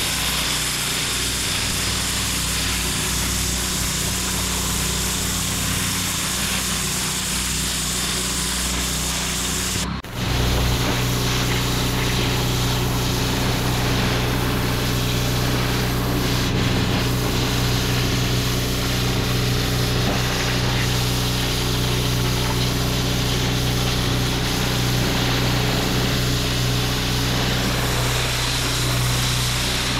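Pressure washer running: the steady low hum of its motor under the hiss of the lance's water jet blasting brick paving. About ten seconds in the sound breaks off for a moment and resumes with a stronger low hum.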